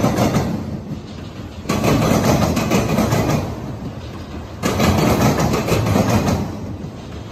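Empty auto rack freight cars rolling past with a steady rumble, their wheels breaking into a loud clatter that starts suddenly about every three seconds and fades between.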